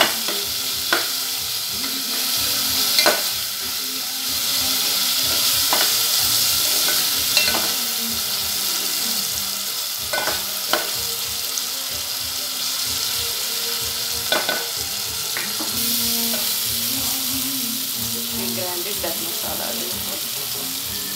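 Sliced onions and tomato sizzling in oil in a metal pot, the tomato cooking down and softening, while a spatula stirs and now and then scrapes and knocks sharply against the side of the pot.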